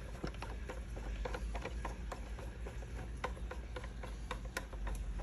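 Plastic CO2 reactor parts being handled and the threaded cap screwed back on over its O-ring: irregular light clicks and ticks.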